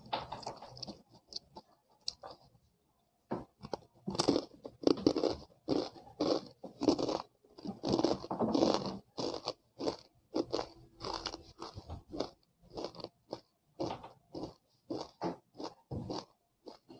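Chegodilu, crunchy fried rice-flour rings, bitten with a sharp crack and then chewed with dense crunching. A short pause comes about two seconds in, and the crunching is heaviest from about four to ten seconds in, then thins to lighter chewing strokes.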